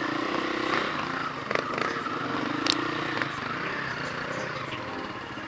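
Off-road dirt bike engines running on a trail climb, their pitch rising and falling as the throttle is worked. A few sharp clicks and knocks come through.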